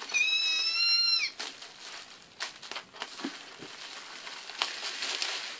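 A woman's high-pitched nervous whimper, held for about a second and dropping at the end, then crinkling and rustling of gift wrapping and tissue paper with a few sharp crackles as it is pulled open.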